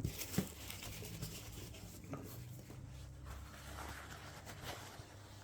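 Quiet handling noises: soft rustling with a few light taps as items and packaging are moved about.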